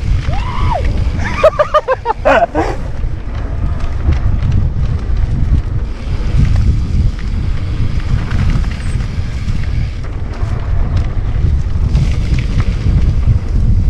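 Wind buffeting the microphone of a camera riding along on a moving mountain bike, a loud, uneven low rumble throughout. A short wavering pitched sound comes in near the start and is gone by about three seconds in.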